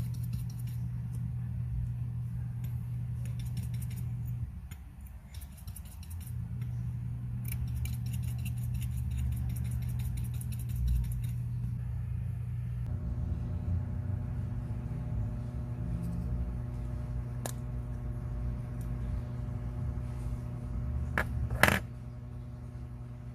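Small metal clicks and clinks of watch parts and watchmaker's tools being handled, over a steady low hum; a few sharper clicks come near the end, the loudest just before it.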